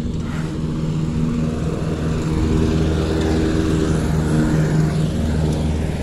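Engine of the moving vehicle carrying the camera, running steadily with a low hum; it gets a little louder about two seconds in.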